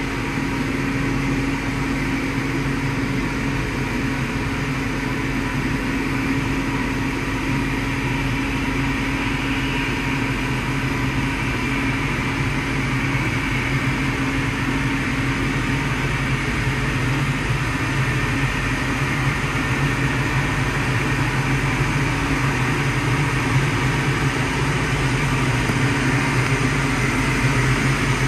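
Steady low engine hum with a constant drone during the pushback of an Ilyushin Il-76TD cargo jet, its main engines not yet started; it grows slightly louder toward the end.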